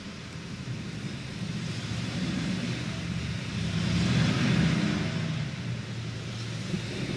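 Steady rain hiss, with a car driving past on the wet street: the swish of tyres on wet pavement swells to a peak about four seconds in, then fades.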